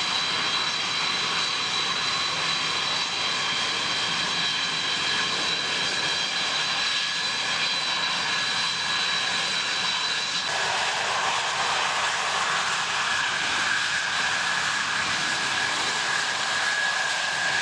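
Antonov An-225 Mriya's six turbofan engines running loud and steady as the aircraft rolls down the runway, a jet roar with high whines on top. About ten seconds in the whine changes, a lower whistle growing stronger as a higher one fades.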